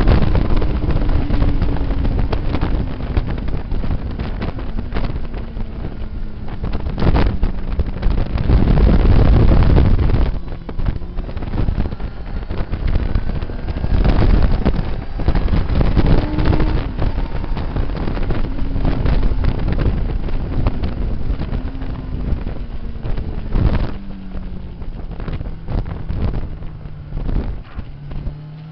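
Motorcycle engine running at track speed under heavy wind buffeting on the microphone. The engine note slides slowly down, jumps back up about halfway through, then slides down again. The wind is loudest about a third of the way in.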